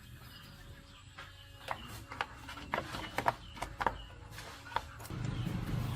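Scattered light clicks and knocks, then about five seconds in a motorcycle engine comes in, running with a low steady hum that grows louder.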